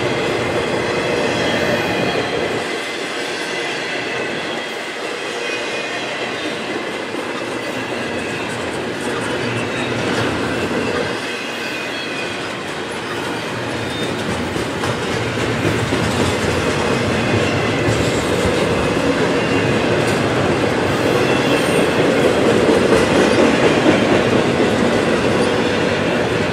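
Double-stack intermodal freight train's container well cars rolling past: a steady noise of steel wheels on rail, growing a little louder in the second half.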